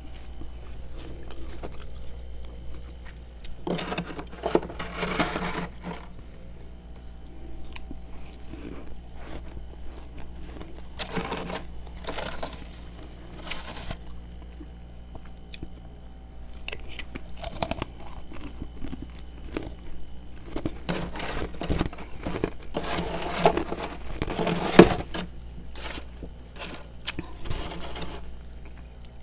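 Close-up chewing of freezer frost: bursts of loud, crisp crunches with quieter gaps between, over a steady low hum.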